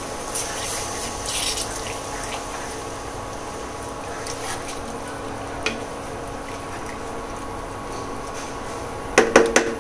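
A spatula stirring a watery brinjal gravy in a non-stick pan, with soft liquid scraping and a steady hum from the induction cooktop. A quick run of knocks near the end, the loudest sounds here.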